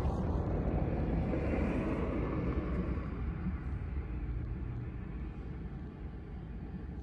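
Low, steady vehicle rumble heard from inside a car; the higher part of the noise fades away after about three seconds.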